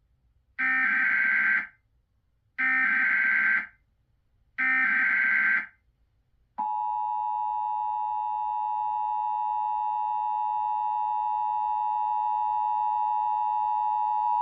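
Emergency Alert System monthly test: three short screeching bursts of the SAME data header, about a second apart. Then, about six and a half seconds in, the two-tone attention signal starts, a steady dual-tone buzz held for about eight seconds.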